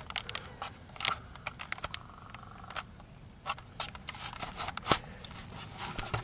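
Handling noise from a handheld video camera being carried and swung about: irregular sharp clicks, knocks and rubbing on the body near the microphone, with one louder knock about five seconds in.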